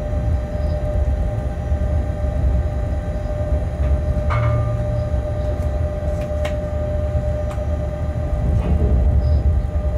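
Cab noise of a shunting locomotive running along the track: a steady low rumble with a constant whine over it, and a few sharp clicks and knocks, the clearest about four seconds in and again about six and a half seconds in.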